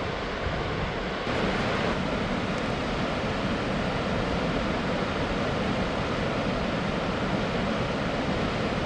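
Steady rushing roar of Wapta Falls, a large waterfall, getting a little louder about a second in.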